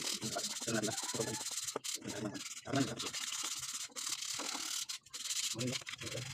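Sandpaper rubbed by hand on a wooden chair frame, in quick back-and-forth strokes a few times a second, with short breaks about two seconds in and again near five seconds.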